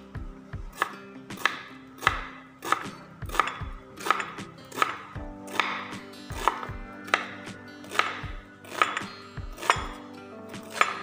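Kitchen knife chopping an onion on a wooden cutting board: a steady run of sharp chops, about three every two seconds.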